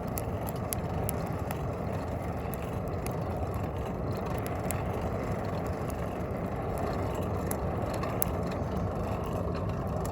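Juniper-wood fire burning in a forge: a steady low rushing noise with frequent sharp crackles and pops.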